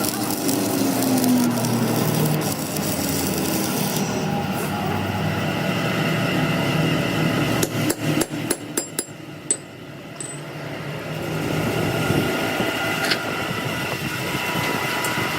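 Hammer tapping on metal parts: a quick run of sharp, ringing taps about eight seconds in, and a single tap later, over steady workshop noise.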